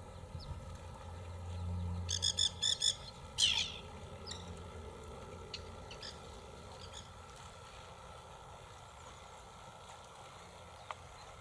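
Bird calls: four quick, evenly spaced chirps about two seconds in, followed straight away by a louder sweeping call, then scattered faint chirps.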